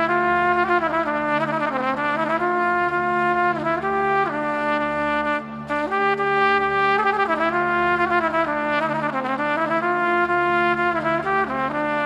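Background music: a melody of long held notes that slide from one pitch to the next, over a steady low drone.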